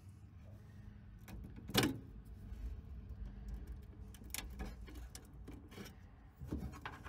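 Small plastic clicks and rattles of wire-harness connectors being wiggled loose from a K40 laser's power supply, with one sharper click about two seconds in.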